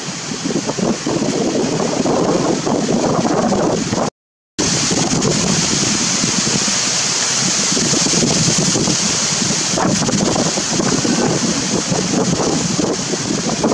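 Wind buffeting the microphone: a loud, steady rushing noise that swells and eases, with a steady high hiss above it. The sound cuts out completely for about half a second around four seconds in.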